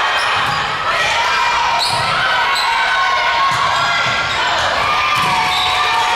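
Volleyball rally on a hardwood gym court: sneakers squeak sharply as players move, the ball is struck a few times, and players call out over steady crowd noise.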